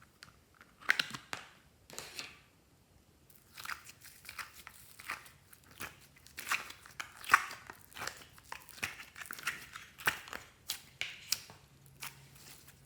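Slime and mixed-in items being handled, giving irregular crunching and crinkling crackles, some louder snaps among many small ones.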